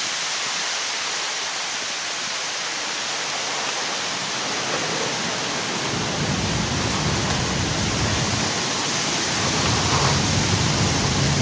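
Steady, even outdoor hiss with no distinct source. From about halfway through, wind rumbles on the microphone underneath it.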